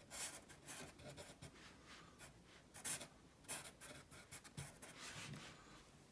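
Faint Sharpie felt-tip marker drawing on paper: a series of short scratchy strokes, with a longer stroke about five seconds in.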